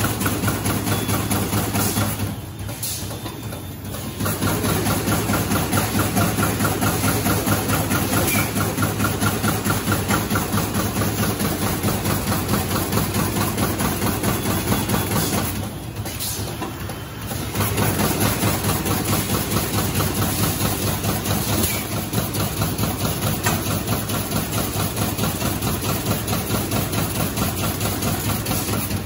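Automatic high-speed T-shirt plastic bag making machine running: a fast, even mechanical clatter over a steady hum, dipping quieter twice for a second or two.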